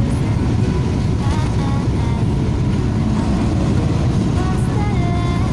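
Steady rumble of a moving bus heard from inside the passenger cabin: engine and road noise at cruising speed.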